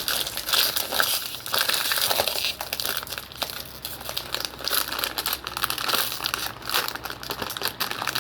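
A keychain mystery-pack wrapper crinkling and crackling continuously as it is handled and pulled at to get it open.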